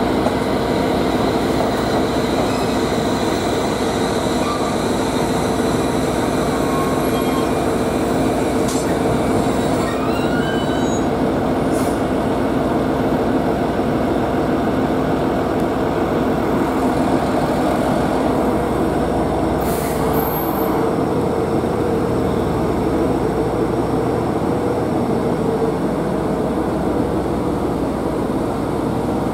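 JR East 701 series electric train at the platform, a steady mechanical hum with a constant drone, and a short rising whine about ten seconds in.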